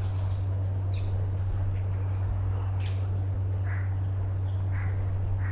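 A steady low hum, with a handful of faint, short bird chirps scattered across it.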